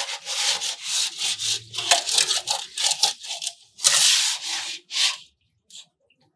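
Two motorcycle timing chains scraping and rattling inside a rusty motorcycle petrol tank as the tank is shaken back and forth to scour the rust off its inner walls. The strokes come unevenly, about two a second, and stop about five seconds in.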